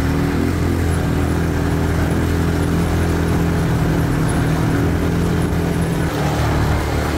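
Quad bike engine running at a steady throttle while riding, an even drone that changes note slightly about six seconds in.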